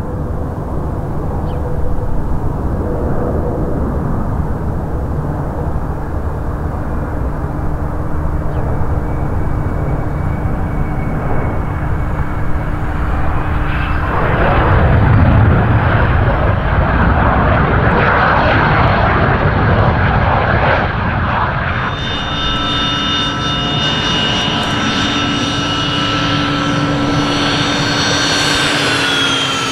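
Twin-turbofan business jet (IAI Astra SPX / Gulfstream G100, Honeywell TFE731 engines) running on approach with a steady rumble. It turns into a louder rush of engine and air noise from about halfway through as the jet touches down and rolls out on the runway. In the last part the engines give a steady high whine as the jet taxis, with the tones falling in pitch right at the end.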